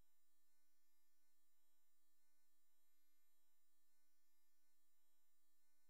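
Near silence, with only a very faint steady electrical hum.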